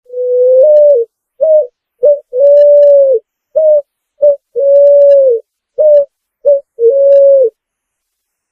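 Picazuro pigeon (pomba asa-branca) singing one phrase of low coos. Four long, even coos alternate with pairs of short clipped coos, and the phrase ends after the fourth long coo.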